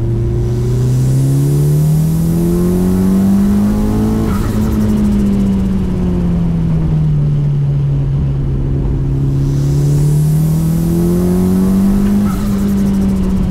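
Mitsubishi Lancer Evolution VI GSR's turbocharged four-cylinder engine heard from inside the cabin, its revs climbing for about four seconds, easing back, then climbing again near the end. A high hiss rises over it each time the revs climb.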